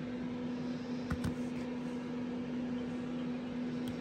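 Steady machine hum at one fixed low pitch, with a few light clicks and knocks of handling about a second in and again near the end.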